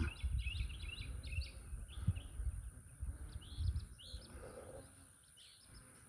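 Several birds chirping in the background: many short, high calls repeated throughout, with a low rumble on the microphone in the first few seconds.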